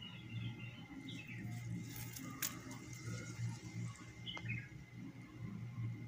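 Small birds chirping in short, scattered calls over a low rumble and a thin steady high tone, with a sharp click about two and a half seconds in and another around four and a half seconds.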